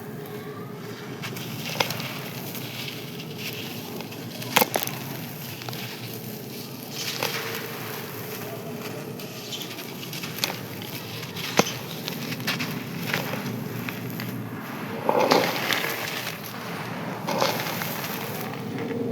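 Dried, crusted sand crunching and crumbling under pressure, with a few sharp snaps and short bursts of crunching over a steady gritty rustle.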